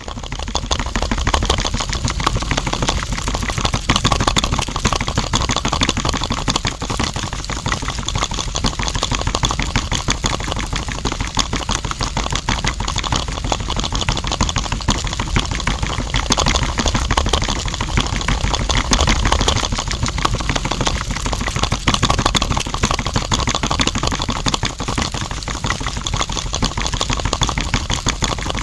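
Small electric motor of a homemade mini juice blender running steadily, with a fast rattling clatter as it churns the frothy juice in its cup.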